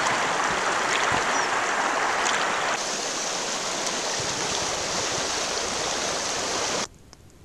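Fast, silt-laden mountain river rushing over rocks, a loud, steady rush of water that cuts off suddenly near the end.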